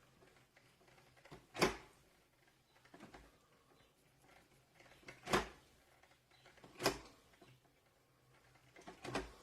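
Mr. Coffee 5-cup Mini Brew drip coffee maker clinking loudly as it brews: four sharp clinks at uneven gaps of one to four seconds.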